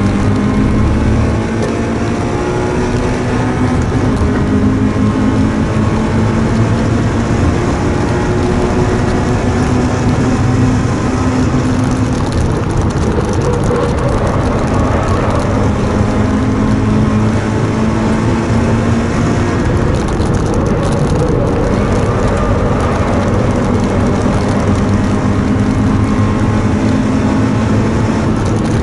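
Onboard sound of a first-generation Subaru BRZ's 2.0-litre flat-four engine running hard on a race track, heard inside the cabin. Its pitch climbs and drops again and again as it pulls to high revs and comes off throttle, over steady tyre and road noise.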